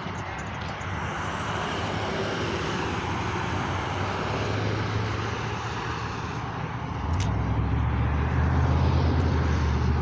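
Highway traffic going by: a steady rush of tyres and engines, with a low engine hum that sets in about seven seconds in and grows louder as a vehicle approaches.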